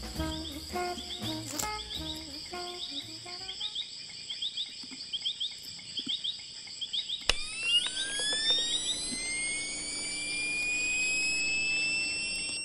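Music trailing off over chirping crickets and a steady high tone. About seven seconds in, a click sets off a camera flash charging up: an electronic whine that climbs slowly and steadily in pitch, over a low hum, until the shot near the end.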